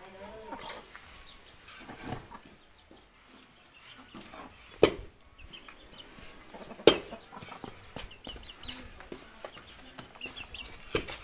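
Knife and cleaver chopping boiled buffalo hide on wooden chopping blocks: scattered sharp chops, the two loudest about five and seven seconds in. Chickens cluck in the background.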